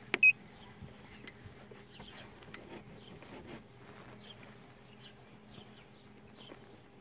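A short electronic beep from a handheld car diagnostic scan tool as its touchscreen is tapped with a stylus, just after the start. After it comes a faint steady low hum, with many faint short high chirps falling in pitch.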